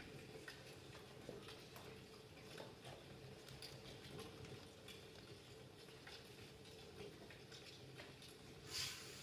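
Near silence: faint, scattered taps and shuffles of performers moving on the floor over a steady low hum, with a short louder rustle near the end.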